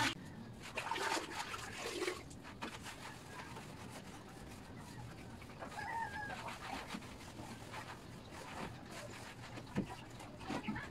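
A few faint, scattered animal calls: short, pitched and spread out, over a low background.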